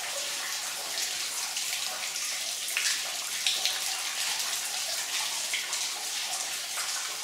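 Steady running and splashing water in a flooded mine tunnel, with a few brief louder splashes about three seconds in.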